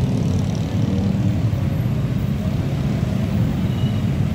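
Steady road-traffic noise: cars and motorbikes driving across the level crossing, a dense low rumble of engines and tyres.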